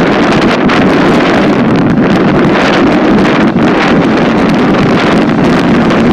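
Strong wind blowing across the microphone: a loud, steady rushing.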